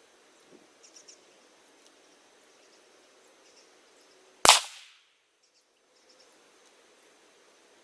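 A single rifle shot from a Savage Axis bolt-action in .223 Remington firing 55-grain full metal jacket ammunition, about halfway through, with a short decay. Faint small ticks and chirps come before it.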